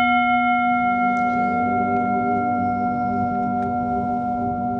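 A singing bowl rings after a single strike, with a low hum and several clear higher tones held together and fading slowly.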